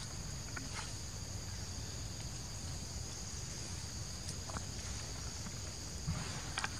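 A chorus of insects (crickets or cicadas) drones steadily at two high pitches, over a low outdoor rumble. A few short clicks come near the end.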